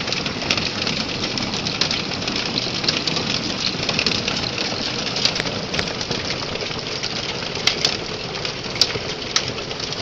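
Rain and hail pelting a house in a steady patter, with scattered sharp clicks of hailstones striking.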